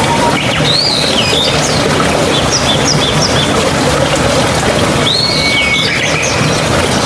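Flowing water running steadily, with a bird calling over it: a phrase of rising and falling whistled notes about half a second in, a few short notes in the middle, and another whistled phrase about five seconds in.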